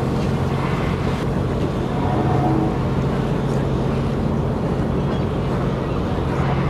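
A boat's engine running steadily as a low, even hum, under a haze of wind and water noise.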